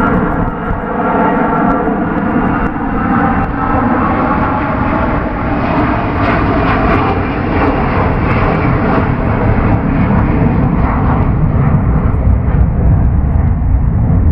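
Il-76MD-M military transport's four D-30KP turbofans at take-off power as the jet lifts off and climbs out: a loud, steady roar. Early on it has a whining edge that gives way to a rougher crackle.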